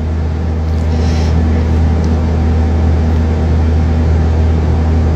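A steady low mechanical hum that does not change, like a running motor.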